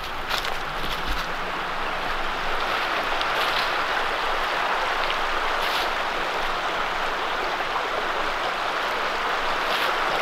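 Fast-flowing brook, a steady rush of running water that swells a little in the first couple of seconds as the bank is reached, then holds even.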